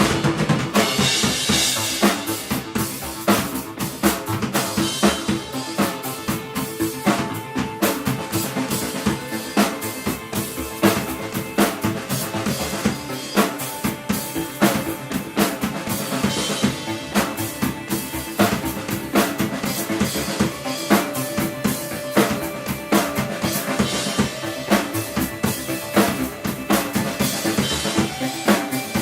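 Live rock band playing, with a drum kit driving dense, rapid snare, kick and cymbal hits over held instrument tones.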